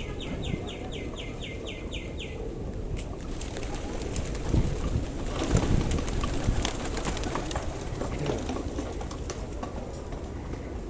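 A flock of birds flapping their wings, a fluttering clatter that swells about four seconds in and eases off again. It opens with a quick run of about nine high chirps.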